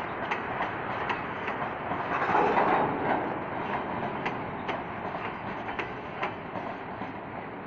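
Freight train's boxcars rolling past, steel wheels clicking irregularly over the rail joints with a steady rumble, swelling louder briefly about two to three seconds in.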